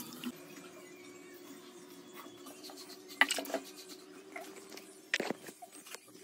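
Soft kitchen handling sounds as red chilli powder is added to raw chicken: a plastic measuring spoon clicking and rubbing against a plastic bowl, a few short knocks about three seconds in and again near the end, over a faint steady hum.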